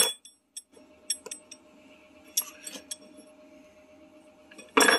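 Steel engine pushrods and hand tools clinking against each other on a wooden workbench as they are handled and sorted. A few sharp clinks with a brief metallic ring, the loudest cluster near the end.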